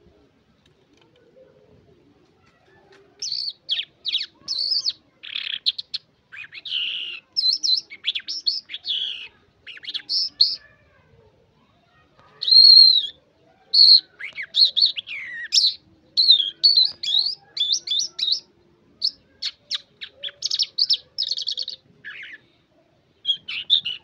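Caged lark singing: a long, varied run of quick chirps, whistled notes and rapid trills, starting about three seconds in and broken by a few short pauses.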